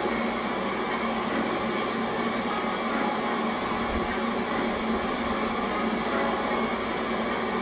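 A steady, even rushing noise with a low mechanical hum, unchanging throughout.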